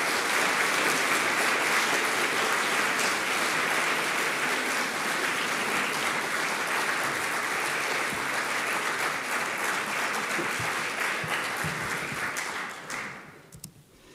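Audience applauding in a welcome, a steady wash of many hands clapping that dies away near the end.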